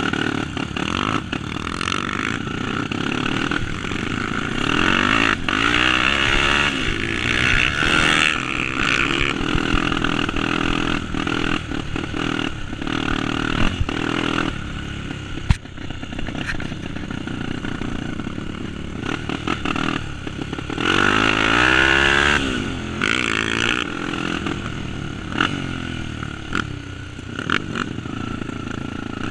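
Single-cylinder trail motorcycle engine running under way, revving up and back down twice, about five seconds in and again about twenty seconds in.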